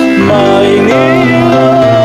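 A song with a sung melody over instrumental accompaniment, its held notes wavering with vibrato.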